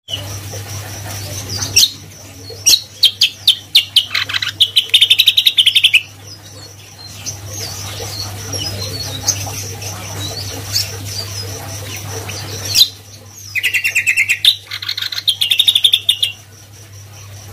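Caged cucak kombo songbird singing two loud bursts of fast, chattering repeated notes, one starting about two seconds in and one about thirteen seconds in, with scattered single chirps between them.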